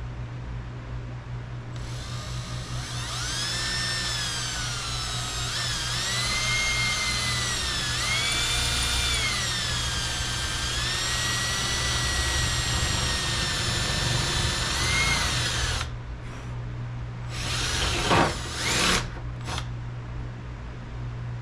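Power drill drilling mounting holes for a rear spoiler through a freshly painted body panel, its motor whine rising and falling in pitch as the trigger is worked for about fourteen seconds. Near the end come two short bursts of drilling.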